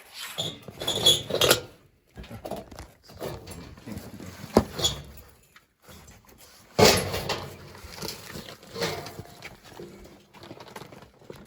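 Irregular rustling, knocks and clicks of hands and tools working on a gas furnace, with a sharp click about halfway through and a louder knock shortly after.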